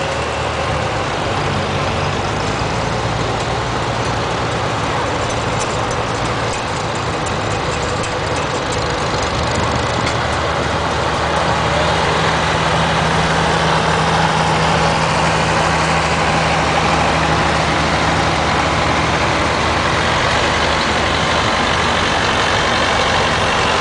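Engines of a line of old farm tractors running as they drive slowly past, a steady low engine hum that grows a little louder about halfway through.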